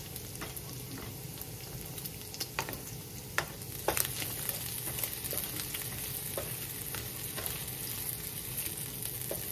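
Diced bacon sizzling in hot grease in a nonstick skillet, with scattered sharp pops. A wooden spatula stirs and scrapes the pieces across the pan.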